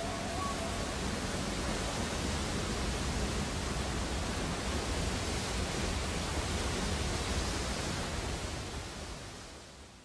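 Waterfall rushing: a steady, even roar of falling water that fades out over the last second or so.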